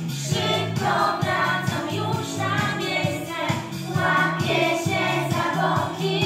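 A song sung by a group of children's voices in unison, over instrumental accompaniment with a steady beat and a repeating bass line.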